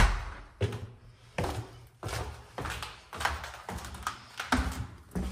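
Footsteps going down a flight of basement stairs: a steady series of thuds, about one step every two-thirds of a second.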